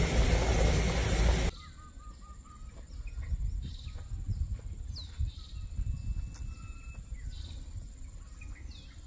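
A loud rush of noise for about the first second and a half, then birds calling outdoors over a low rumble: a quick run of short repeated notes, followed by several whistled notes that fall in pitch.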